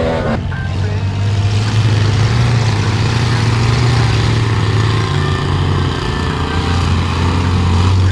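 Pickup truck engine running steadily under load as it drives through deep mud, a continuous low drone.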